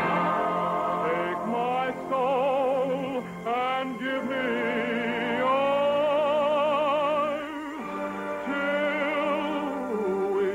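Male vocalist singing a slow romantic ballad in a full, operatic style over musical accompaniment. He holds long notes with a wide vibrato, the longest about five and a half seconds in, lasting some two seconds.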